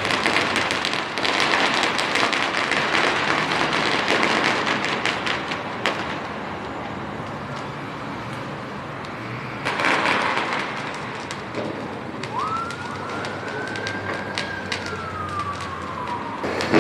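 Fireworks crackling densely in rapid pops for several seconds, with another burst near the middle. Near the end a single siren-like whistling tone rises quickly, holds and slowly falls over about four seconds.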